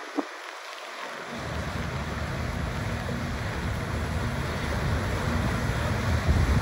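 Wind buffeting the microphone over a steady hiss of rain and lake water. The low buffeting drops out at the start and comes back after about a second.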